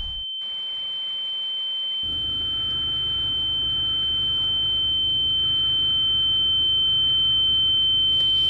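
A steady, high-pitched single tone, the ear-ringing sound effect used in film after a blast, slowly growing louder. A low hum comes in about two seconds in.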